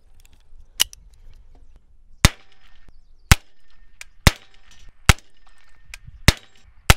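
Semi-automatic .22 LR AR-platform pistol firing single shots: about seven sharp cracks, unevenly spaced roughly a second apart, with a few fainter pops between them.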